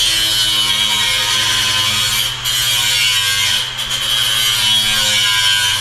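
Steady buzz of a small electric motor, a workshop power tool, running continuously with a high whine and a low hum, dipping briefly twice.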